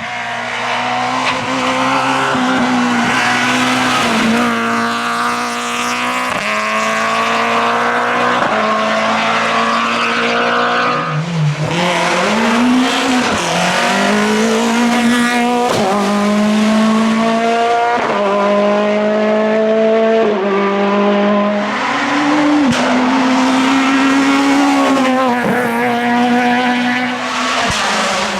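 Group F2000 rally car's naturally aspirated engine at full throttle, its pitch climbing through the gears and dropping sharply at each shift, with quick downshifts and throttle blips under braking around the middle.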